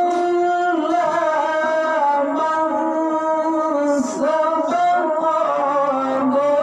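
A male qari reciting the Quran in the melodic style in a high voice, holding long notes and moving between them in steps, with a brief break about four seconds in.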